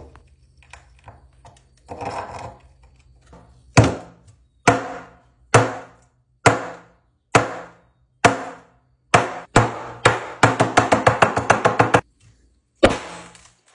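Scraping inside a glass beaker, then repeated sharp knocks on the upturned glass beaker, each ringing briefly. The knocks come about once a second, then in a fast run, then once more. This is an effort to loosen a stuck cake of copper sulfate crystals from the beaker.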